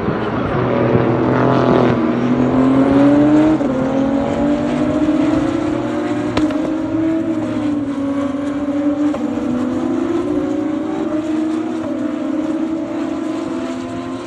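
A racing car engine accelerating through the gears: its pitch climbs, drops at each upshift every couple of seconds, then climbs again. There is one sharp click about six and a half seconds in.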